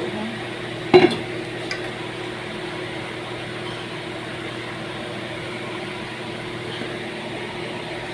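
Metal utensil clanking once against a pan on the stove about a second in, with a lighter tick just after, over a steady kitchen hum while the oil heats for tempering.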